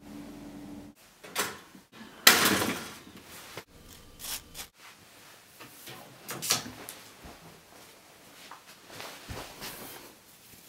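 A quick run of short handling sounds: a steady hum that stops about a second in, clicks and knocks, a loud hissing burst about two seconds in, then lighter swishes as clothes on hangers are pushed along a closet rail.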